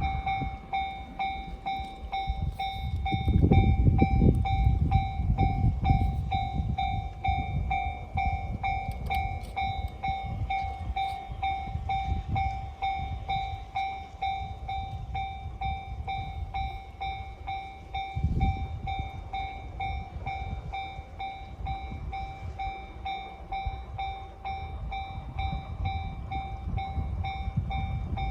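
Railway level-crossing alarm ringing in a steady, rapidly repeating bell while the C57 180 steam locomotive and its 12-series coaches pass. The train's heavy rumble is loudest about three to six seconds in, with another brief surge a little past the middle.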